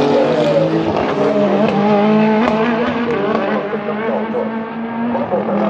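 Engines of several endurance race cars running at speed at once, their engine notes at different pitches overlapping and sliding up and down.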